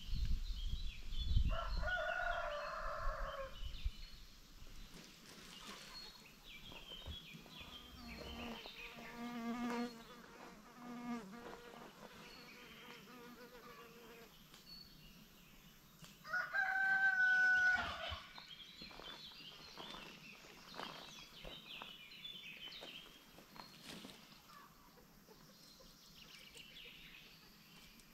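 Rooster crowing twice, loud held crows about 1.5 s in and about 16 s in, among a free-ranging chicken flock. Between the crows come softer, lower chicken calls and many short, high chirps.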